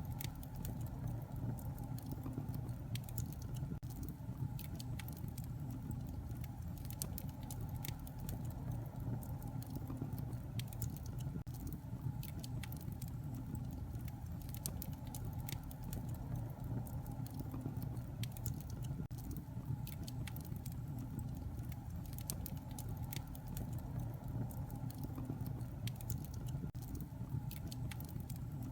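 Wood fire burning steadily with a low rumble, scattered with irregular sharp crackles and pops.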